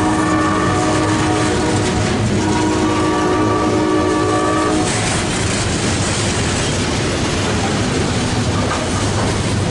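Loaded coal hopper cars rolling past with steady wheel-on-rail noise and clatter. Over it a multi-chime locomotive horn sounds two blasts, the first ending about 2 seconds in and the second running to about 5 seconds in.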